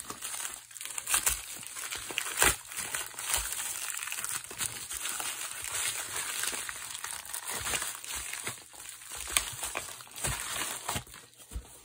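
White plastic mailer bag crinkling and crackling as it is handled and opened, with many sharp crackles; near the end a box slides out of it.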